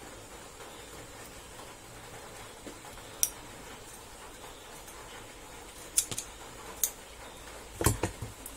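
Scissors snipping at the old starter cord of a chainsaw's recoil starter: a handful of sharp, separate clicks a second or more apart, the first about three seconds in, with a louder knock near the end.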